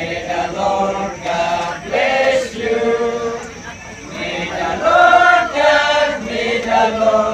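A group of voices chanting an Igorot song together, unaccompanied, in phrases of held notes with short breaks between them.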